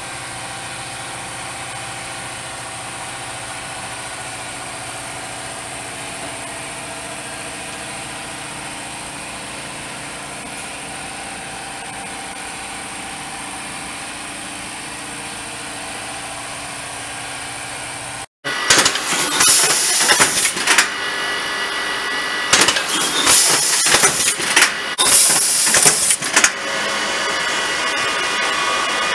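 Sigma drill, drive and rivet T-nut machinery running with a steady hum of several tones. About two-thirds of the way through, the machine head drills into a wooden board: three loud bursts of high, hissing drilling noise a couple of seconds each, then a steadier whir.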